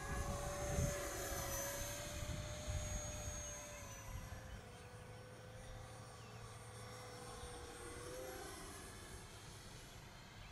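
Arrows RC Viper model jet's 50mm electric ducted fan whining as the jet flies by, its pitch wavering slightly. It is louder for the first few seconds, then a little fainter.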